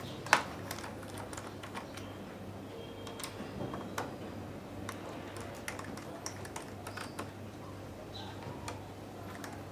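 Light, irregular clicks and taps from handling a laptop and small tools, with one sharper click about a third of a second in, over a low steady hum.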